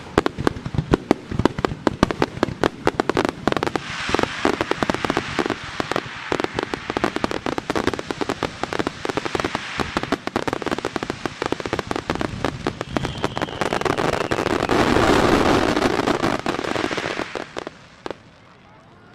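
Grand-finale fireworks barrage: many shells bursting in quick succession amid dense crackling. It swells into a continuous wash of crackle about two-thirds in, then dies away near the end.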